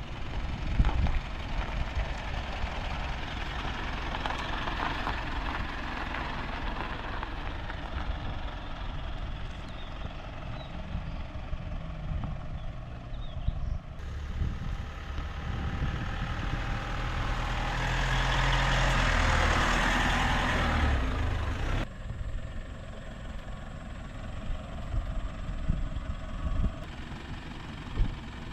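Motor vehicle on the move: steady engine and road rumble, swelling into a louder rush for a few seconds past the middle.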